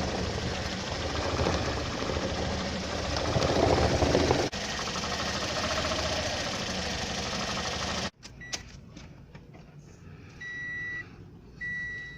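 2015 Toyota Corolla four-cylinder engine running rough with a misfire, which stored ignition-coil circuit codes point to failing coils. It cuts off abruptly about eight seconds in, followed by a few clicks and two short electronic beeps.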